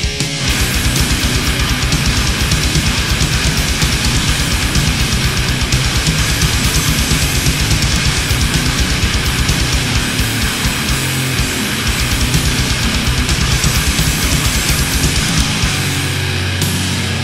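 Death metal recording: distorted guitars over fast, unbroken bass drumming. Near the end the drumming stops and a low note is held.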